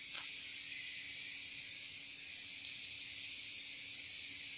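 Steady, high-pitched insect chorus of crickets droning on without a break, with a faint steady low hum beneath it.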